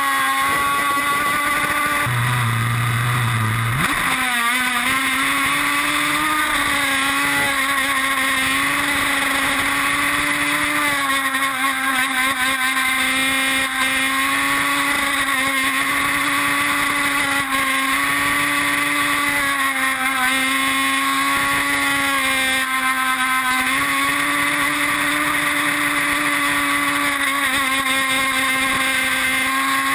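Two-stroke gas engine of a radio-controlled model boat running at high revs, heard from on board: a steady high whine that wavers a little with the throttle, over the rush of water and spray. About four seconds in, the pitch dips briefly and climbs back.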